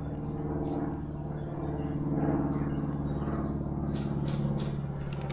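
Steady engine drone with an even pitch and fast regular pulsing, with a few faint clicks near the end.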